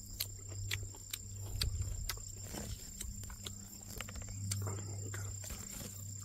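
Footsteps and brushing through grass and brush, heard as scattered sharp clicks and rustles, over a steady low hum and a constant high-pitched whine.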